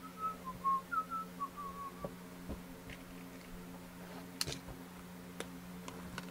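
A person whistling a short wandering tune of quick notes that stops about two seconds in. After it come scattered clicks and crinkles of fingers working the plastic shrink wrap on a sealed trading-card box, over a steady low electrical hum.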